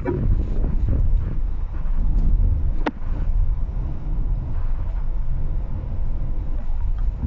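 Steady low road and engine rumble heard inside a VW Polo's cabin while cruising at about 50 km/h, with a single sharp click about three seconds in.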